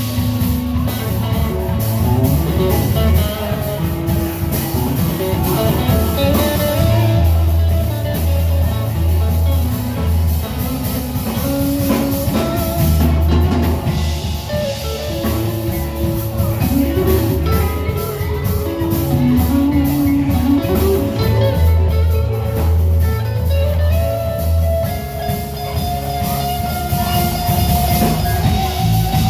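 A live band playing an instrumental jam: electric guitar, electric bass, drum kit and vibraphone, with held, sliding melody notes over a steady drum and bass groove.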